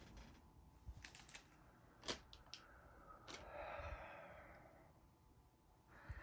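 Faint, sparse taps and scratches of a pastel pencil working on pastel paper, with a soft breath-like rush about three to five seconds in.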